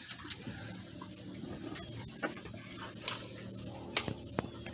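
Steady high-pitched drone of crickets or other insects, with scattered short clicks and taps and a faint low hum underneath.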